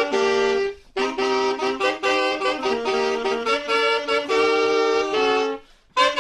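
A saxophone ensemble playing a ska tune, several parts sounding together in harmony. The phrase breaks off briefly about a second in and again near the end, then picks up.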